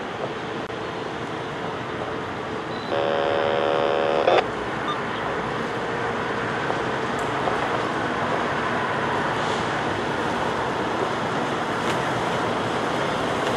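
Heavy diesel work truck approaching slowly over a gravel road, its running growing gradually louder. A horn sounds once for about a second and a half, about three seconds in.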